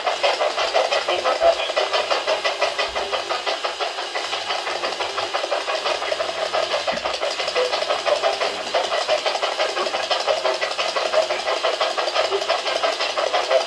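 Spirit box sweeping through radio frequencies: continuous rapid, choppy static with snatches of radio sound.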